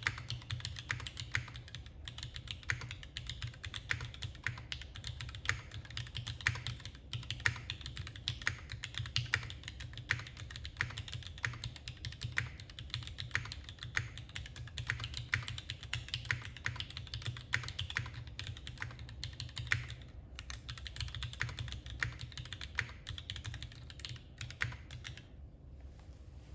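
Typing on a mechanical keyboard with Gateron Yellow linear switches and GMK Laser keycaps: a fast, continuous run of keystrokes that stops about a second before the end.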